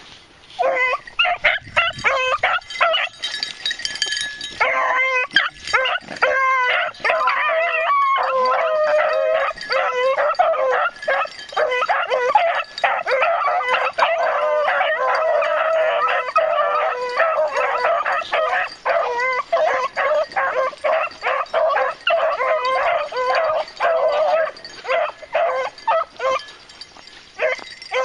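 A pack of beagles baying, several voices overlapping in an almost unbroken chorus from about half a second in, as the hounds run a rabbit's scent trail.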